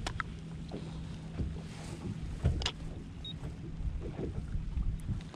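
Steady low rumble of wind and water on an open boat, with a faint steady hum underneath and a few light clicks.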